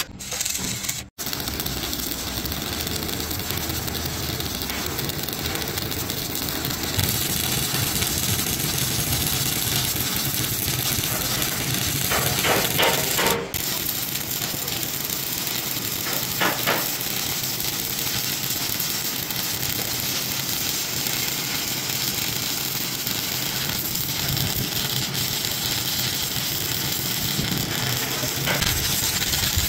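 Stick (shielded metal arc) welding on a steel truck chassis rail: the arc gives a steady crackling hiss. It breaks off briefly about a second in.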